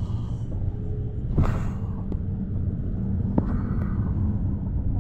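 Cabin of a Luidor-223237 minibus built on a Mercedes-Benz Sprinter Classic, heard from a passenger seat on the move: steady low engine and road rumble, with two short knocks, one about a second and a half in and one about three and a half seconds in.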